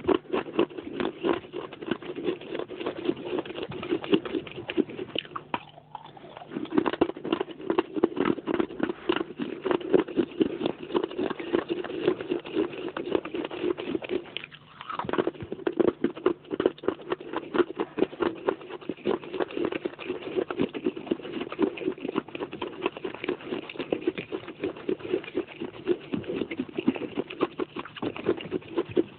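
Pieces of baked clay pot being chewed close to the microphone: a dense, continuous crunching crackle, with two short pauses about 6 and 14 seconds in.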